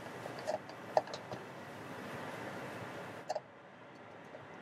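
Shredded carrots and broccoli being stirred in a wok with a spatula: a soft steady hiss with a few light taps of the spatula against the pan. The hiss drops away about three seconds in.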